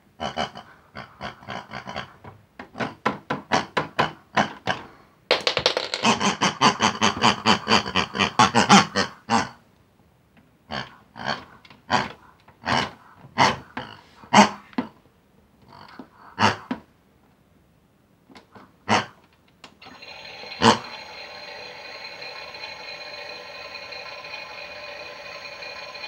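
A run of short pig-like grunts and oinks, thick and fast for a few seconds and then spaced out. About 20 s in comes a click, and a toy Miele washing machine starts up with a steady whirring hum.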